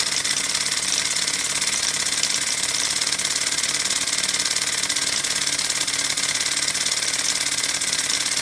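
Miniature five-cylinder radial model engine running steadily at speed, a fast, even mechanical chatter with a lot of high hiss, spinning its propeller.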